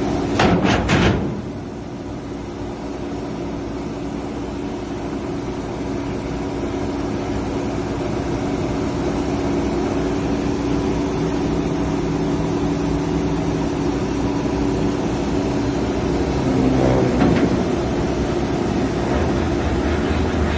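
Amphibious excavator's engine running steadily, with a short cluster of knocks about a second in and another about seventeen seconds in.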